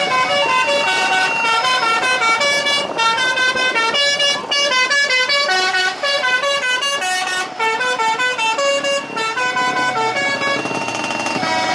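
A fast melody of short notes that step up and down every fraction of a second, played without a break.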